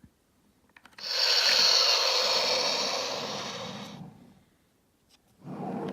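Little People Jumbo Jet toy playing its recorded jet-engine whoosh through its small speaker: a noisy rush that starts suddenly about a second in and fades away over about three seconds.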